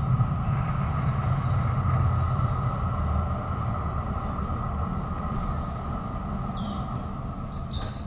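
Tram running with a low rumble and a steady whine, slowly fading as it moves away. A few high chirps sound near the end.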